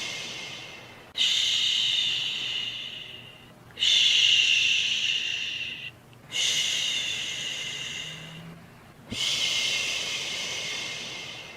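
A person shushing: a long 'shhh' repeated about every two and a half seconds, each one starting sharply and fading away. It is the soothing shush used to calm a baby to sleep.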